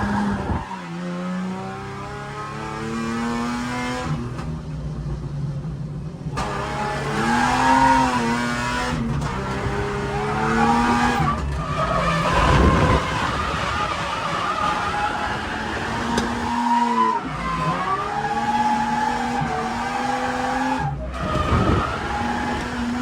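Ford AU Falcon drift car at full effort on track: the engine revs rise and fall repeatedly, and the tyres squeal and skid through the slides.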